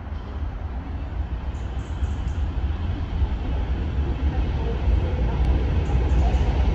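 Rumble of a Class 156 Sprinter diesel multiple unit drawing nearer, its underfloor diesel engines growing steadily louder.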